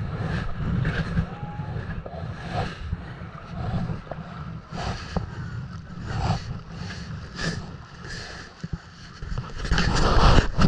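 Water splashing and lapping around a kayak in irregular surges about once a second, over a steady low rumble of wind on the microphone; a louder splash near the end.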